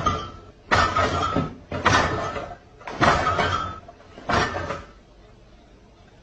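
Five loud bangs, roughly a second apart, each dying away over about half a second.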